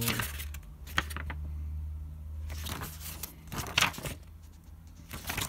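Pages of a paperback textbook being turned and handled, a few short papery rustles and taps, over a steady low hum.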